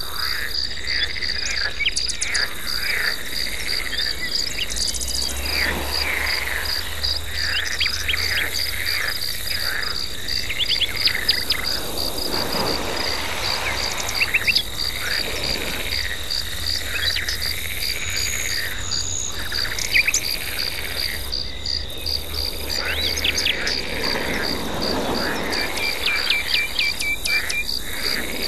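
Chorus of insects and frogs: a steady, evenly pulsed high chirping throughout, with frog calls repeating about every two seconds and occasional short bird chirps, over a low rumble.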